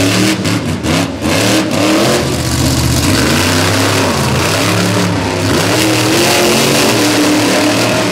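Monster truck engine revving up and down repeatedly as the truck drives on a dirt track, with a few sharp cracks in the first second or two.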